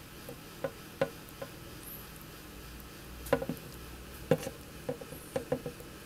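Sharp, irregular crunching clicks from a baby Madagascar giant water skink chewing a white insect larva: a few isolated clicks about a second in, then a quicker run of them from about three seconds on.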